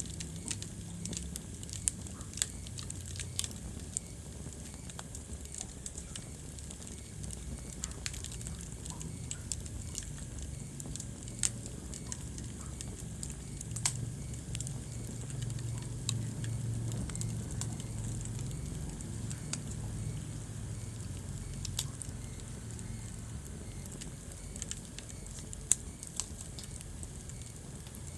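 Wood fire burning in a fireplace: a low, steady rumble of flames with irregular sharp crackles and pops, a few of them much louder than the rest.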